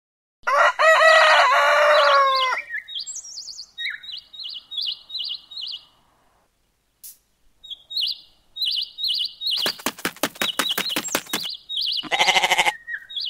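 Farmyard animal sounds: a rooster crows for about two seconds at the start, followed by repeated short, high chirps from small birds. About ten seconds in there is a fast run of pulses, and near the end comes a pulsing bleat.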